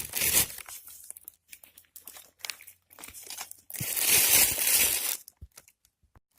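Rustling, crunching and tearing of dry leaves and brush as mushrooms are picked from stumps, in scattered short bursts with one longer, louder burst about four seconds in.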